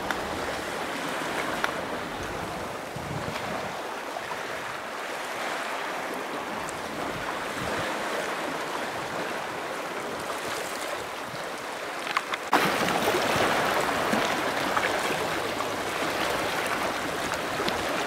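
Small sea waves washing onto a sandy beach: a steady wash of water noise that gets louder about two-thirds of the way through.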